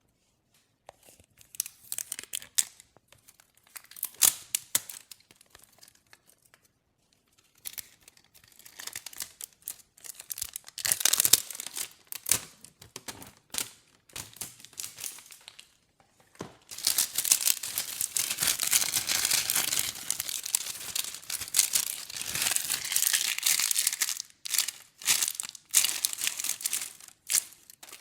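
Glossy slime being handled close to the microphone, stretched and squished with sticky, crackly clicks and pops. It comes in spells, with the longest unbroken stretch of crackling about two-thirds of the way through.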